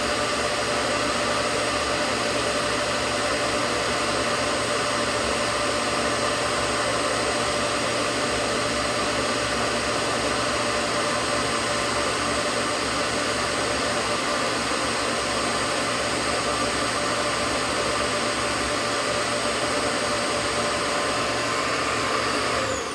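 Hoover Powerdrive XL vacuum cleaner running at full power with a steady rushing sound and a whine, drawing air through its sealed intake for an airflow test. Near the end it is switched off and the motor starts to wind down.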